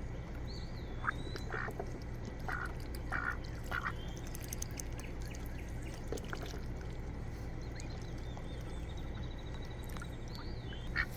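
Domestic ducks giving a few short, soft quacks in the first few seconds, with faint high chirps near the start and again near the end, over a steady low background rumble.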